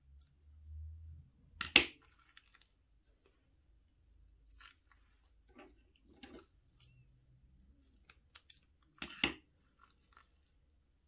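Scissors snip through the tip of a plastic piping bag about two seconds in. The bag is then squeezed, pushing clear slime with beads out in soft squishes and crackles, with one louder crunch near the end.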